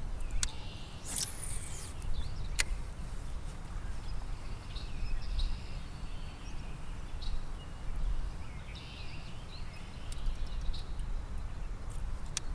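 Wind rumbling on the microphone, with birds chirping now and then in the background and a few sharp clicks in the first few seconds.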